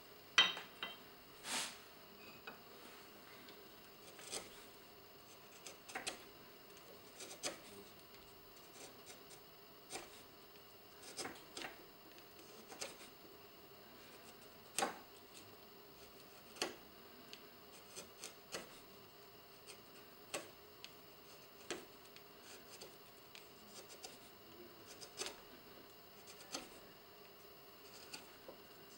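Small hand carving gouge paring into the end grain of an oak key-front block, pushed by hand: short, crisp cutting snicks and scrapes coming irregularly, about one every second or two, the loudest just after the start.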